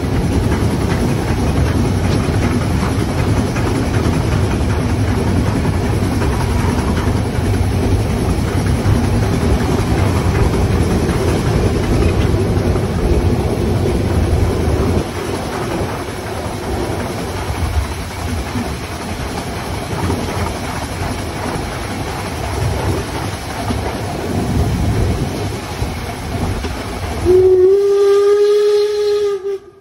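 Harz narrow-gauge steam train running, heard from the first coach behind locomotive 99 7245-6, a metre-gauge 2-10-2 tank engine: a steady rumble of the wheels on the rails and the working locomotive. Near the end the locomotive's steam whistle gives one blast of about two seconds, rising briefly at the start and then holding one pitch.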